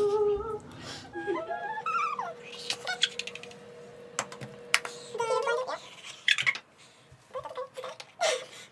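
Girls laughing and shrieking, with a quick run of sharp clicks about three seconds in.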